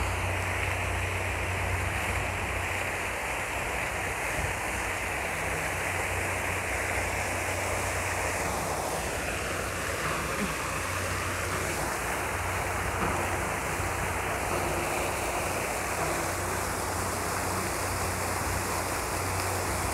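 Many vertical jets of a plaza fountain splashing steadily into a shallow pool, making a constant rushing of falling water.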